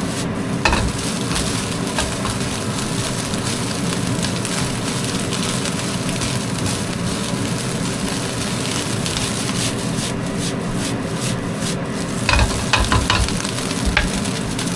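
Egg-coated rice sizzling as it is stir-fried in a hot pan, with a spatula scraping through it. A few sharp clacks of the spatula against the pan come near the start and again in a quick cluster near the end.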